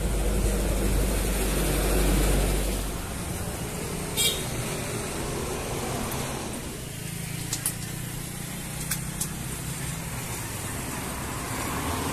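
A vehicle engine idling steadily, with a heavier low rumble in the first three seconds and a few short, sharp clicks about four seconds in and again near eight to nine seconds.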